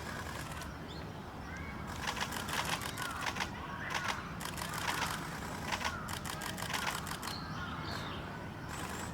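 Camera shutters firing in rapid bursts of continuous shooting: four or five runs of fast clicks, starting about two seconds in and ending near the end.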